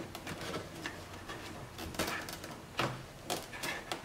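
Faint handling noises: a few light clicks and rubs as a wire is pushed in behind plastic interior trim panels.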